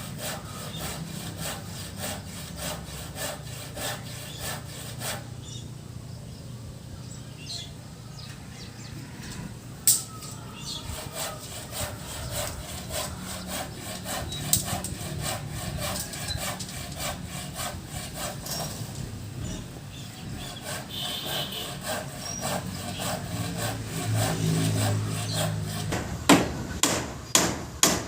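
Hand saw cutting wood in steady back-and-forth strokes, about two a second, with a few sharp knocks near the end.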